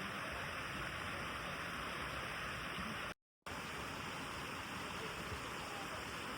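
Steady rushing of a mountain stream, cut off to silence for a moment about three seconds in before resuming.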